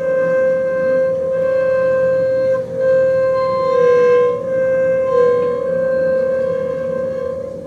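Double bass bowed arco, holding one high, sustained note. It breaks off briefly about two and a half seconds in, and the pitch sags slightly a couple of times later on.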